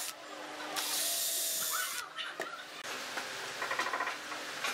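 Cordless drill driving a screw into a wooden tabletop board: one short run of motor whine lasting just over a second, cutting off sharply about two seconds in, followed by light clicks.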